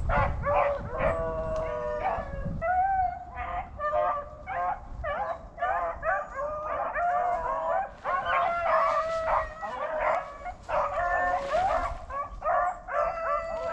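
A pack of beagles bays continuously on a rabbit's track, several voices overlapping in long, drawn-out calls.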